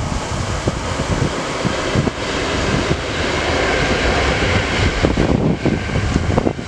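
Electric passenger train running past on the curve, its rolling noise swelling toward the middle, mixed with heavy wind buffeting the microphone.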